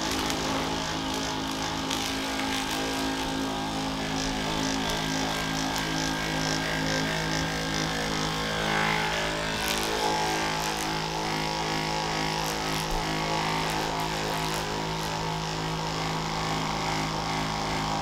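Handheld percussion massage gun running steadily, its motor humming as the head is worked against the muscles of the back of the leg.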